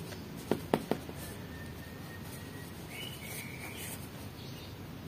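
Foam squishy toys handled in gloved hands: three quick sharp taps about half a second in, then faint high chirps a little later.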